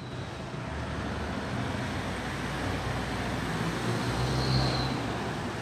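A motor vehicle passing on the road: engine and tyre noise builds to a peak about four and a half seconds in, then eases off.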